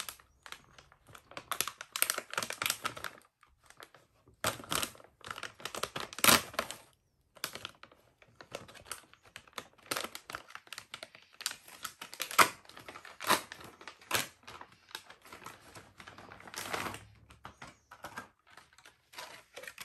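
Plastic toy packaging crinkling and crackling in irregular bursts and clicks as a plastic pouch is opened and a clear plastic capsule is handled.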